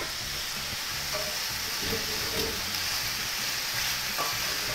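Sliced carrots, potatoes, chorizo and button mushrooms sautéing in hot oil in a pot, a steady sizzle, while a spoon stirs them.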